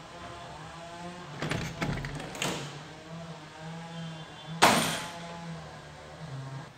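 A wooden interior door being opened: a few clicks and knocks from the handle and latch, then one sharp knock about four and a half seconds in, over a steady low hum.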